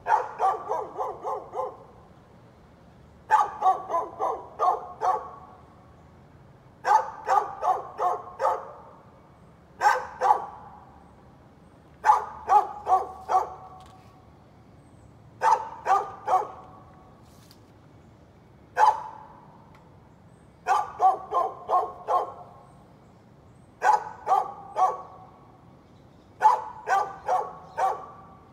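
A dog barking in bouts of three to six quick barks, a new bout about every three seconds, keeping up without a break.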